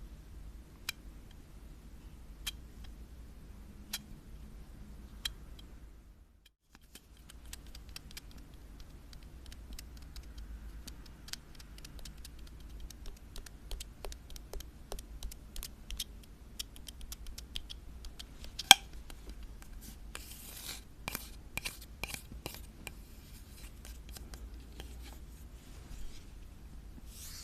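Close-miked ASMR trigger sounds of an object being tapped and scratched. Scattered sharp clicks thicken into quick ticking, with one loud click a little past the middle and a short run of scratchy strokes soon after. A steady low hum lies underneath.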